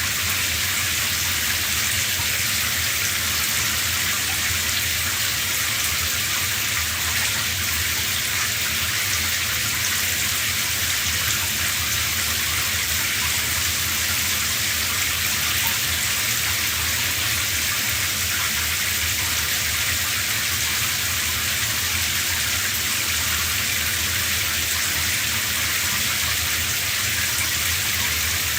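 Shower running steadily: a continuous hiss of water spraying and splashing, without change.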